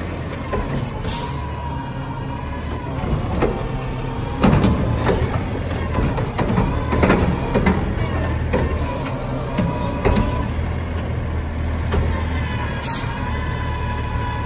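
Front-loading garbage truck's diesel engine running as the truck creeps along, with a high steady whine that comes and goes, several metal clanks, and a short hiss of air brakes near the end.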